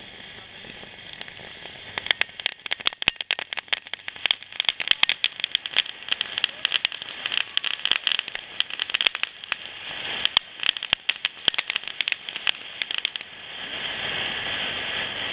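Firework going off right over the camera: from about two seconds in, a dense run of rapid crackling pops for some ten seconds, then a steady hiss of spraying sparks near the end.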